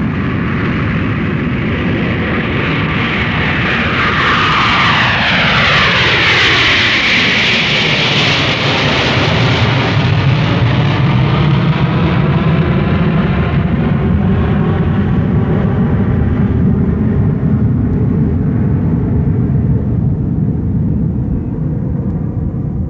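Aircraft engines and rushing air heard from inside the cockpit as the plane takes off: a loud, steady rush. A set of tones glides downward about four to eight seconds in, and the sound starts to fade near the end.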